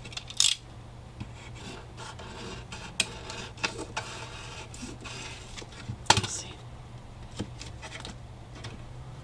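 Craft knife (cúter) scraping and slicing through excess card along the edge of a cardboard box, with paper rustling and small handling clicks; two stronger scraping strokes, one just after the start and one about six seconds in.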